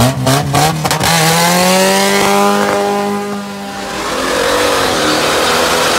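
Car engine revved hard during a burnout, choppy at first, then rising in pitch and held high for a couple of seconds before dropping back. A rushing hiss of spinning tyres follows in the second half.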